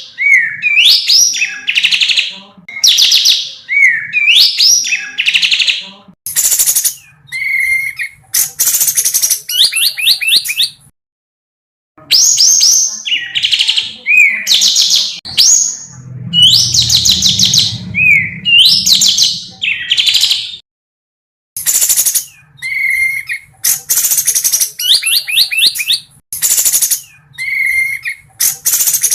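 Loud songbird song for training cage birds, in repeated phrases. Each phrase has sharp sweeping whistles and rapid chattering trills, several notes a second. The song stops briefly about 11 seconds in and again about 21 seconds in.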